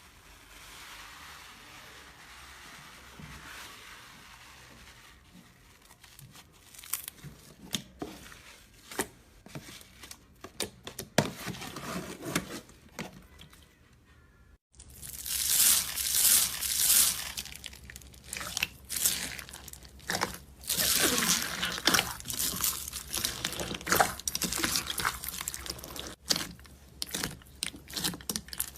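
Slime being squeezed and pressed by hand, with crackling, crunching pops from trapped air. It is faint at first with scattered crackles. After a sudden cut about halfway through, it becomes louder and denser.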